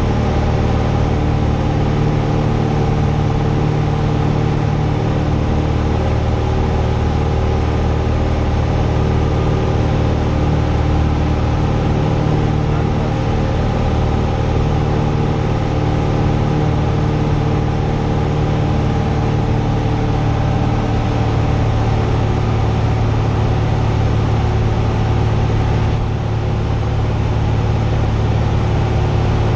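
Cessna 172's piston engine and propeller droning steadily in flight, heard inside the cabin, with a slight shift in pitch about two-thirds of the way through.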